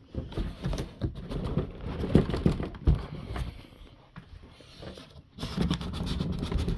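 Cardboard box being handled and lifted: irregular scraping and rustling with several knocks, the loudest about two and three seconds in.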